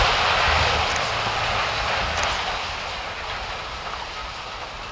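Rumble of a reinforced-concrete high-rise collapsing in an explosives implosion, dying away as the debris settles: a dense, noisy roar that fades steadily over a few seconds.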